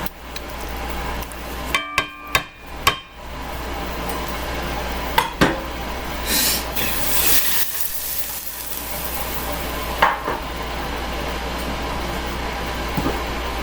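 Kitchen handling sounds: a cluster of ringing metal clinks from a pan and utensils, later a few single knocks and a short hiss as hot roasted tomatoes go into the skillet. A steady low hum runs underneath.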